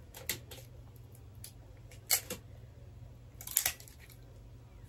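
Wrapping paper being handled, crinkling in three short rustles: near the start, about two seconds in, and about three and a half seconds in.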